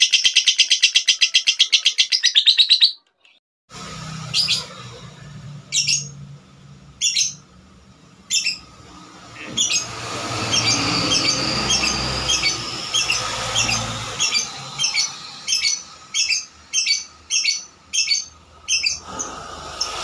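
Blue cobalt lovebird calls: a rapid chattering trill that cuts off about three seconds in, then, after a brief gap, short sharp chirps about once a second that come faster, roughly twice a second, in the last few seconds.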